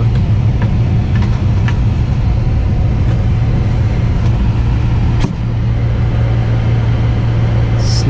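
Lennox G51MP gas furnace running with a steady, loud motor hum, a few light clicks early on and a sharper click about five seconds in. The burner is snuffing itself out, which the technician puts down to the furnace starving for combustion air through its intake.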